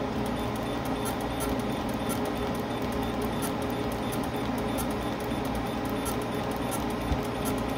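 Capacitor discharge resistance welder firing its copper roll-spot wheel electrode on stainless steel sheet, an even series of sharp weld snaps several times a second as the wheel rolls along the seam, over a steady low hum.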